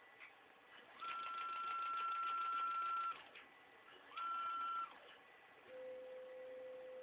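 ShopTask CNC machine's stepper-driven axes whining as they move. A steady high whine lasts about two seconds, rising in at the start and sliding down at the end; a shorter one follows, then a lower-pitched whine starts near the end. The uploader reports the machine getting held up even at a lower velocity.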